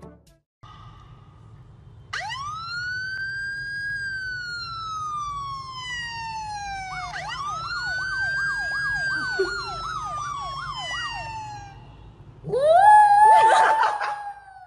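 An emergency-vehicle siren wails in two slow rising-and-falling sweeps, then switches to a fast yelp. Near the end a small white dog howls along, loudly and with a wavering pitch.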